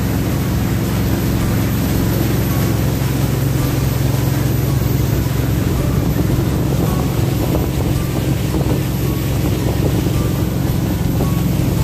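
Jet boat under way, its engine running with a steady, unbroken drone over the rush of the boat's motion, with some wind on the microphone.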